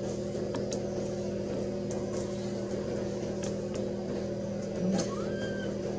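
A steady low machine hum with several even tones, with a few faint clicks and a short rising squeak about five seconds in.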